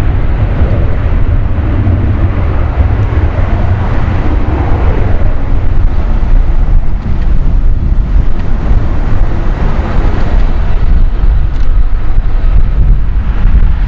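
Distant Boeing 787's GE GEnx jet engines running at low taxi power, a steady rumble. Heavy wind buffeting on the microphone fills the low end.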